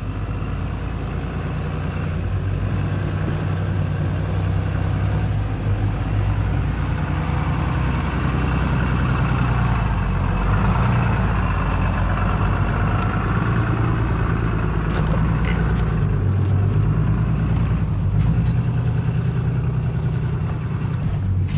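2021 Ram 2500 Limited pickup's engine running at low, steady revs as the truck crawls up a steep rocky track, growing louder over the first few seconds as it nears. A few short knocks come through around the middle.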